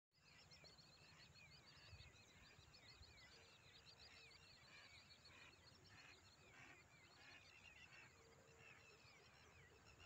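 Faint, dense chorus of many birds chirping and calling, a steady run of short quick notes, over a low rumble.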